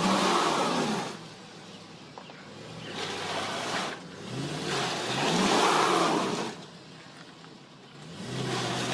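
Car engine revving in repeated surges, each rising and falling in pitch, as the stuck car's spinning back wheels try to dig out of mud.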